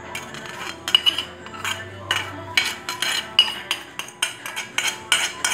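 A knife scraping and tapping against a ceramic plate, with a dozen or so irregular sharp clinks, as chopped onion and garlic are scraped off the plate into a stainless steel bowl.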